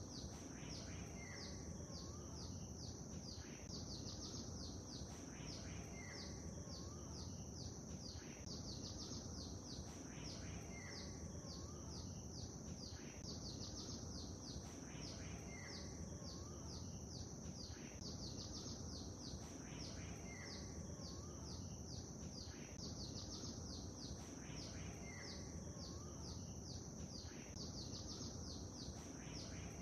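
Songbirds chirping over a steady low background noise, with fast high chirping throughout and the same short call phrase recurring about every five seconds.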